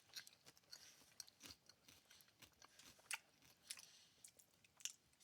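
Faint close-up chewing of crispy fried cream cheese rangoons, a string of small irregular crunches and mouth clicks.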